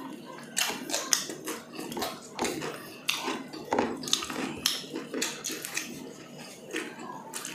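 Eating sounds: chewing and lip smacks, with fingers picking at grilled chicken inasal on plates, heard as irregular short clicks and smacks.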